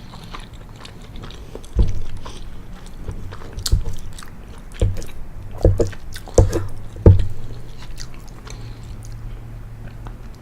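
Close-miked chewing of penne pasta, with irregular wet mouth clicks and smacks. The loudest ones come around the middle of the stretch.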